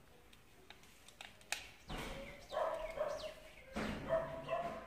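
A dog barking and yelping several times in the background, starting about two seconds in. A few light clicks come before it.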